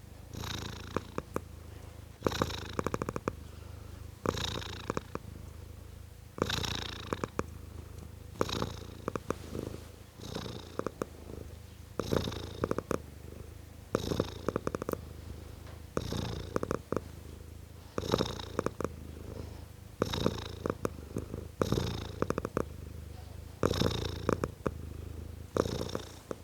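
A tomcat purring in a steady rhythm, swelling louder about every two seconds.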